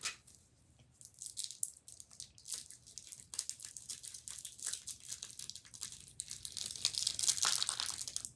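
Candy wrappers crinkling and rustling as they are handled, with a quick run of small crackles that grows denser and louder toward the end.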